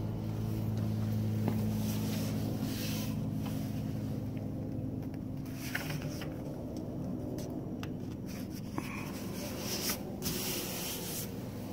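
A hand rubbing and brushing over the rubbery Flex Seal coating on a canoe hull, in a few short scratchy bursts. A steady low machine hum runs underneath.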